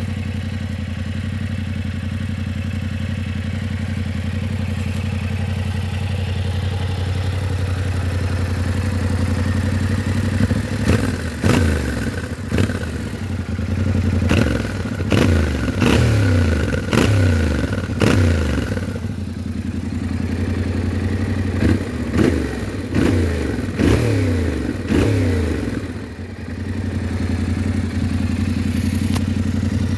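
Yamaha Ténéré 700's parallel-twin engine on its stock exhaust, idling steadily, then blipped about a dozen times in quick succession with the revs falling back after each blip, before settling to idle again near the end.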